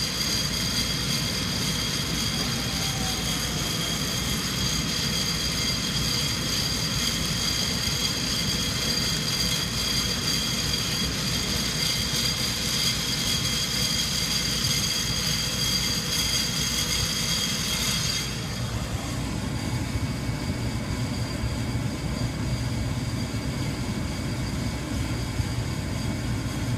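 Sonofresco fluid bed coffee roaster running steadily, its blower pushing hot air through the churning beans with a constant rumble and a high whine. About two-thirds of the way through the whine drops away and the rumble carries on.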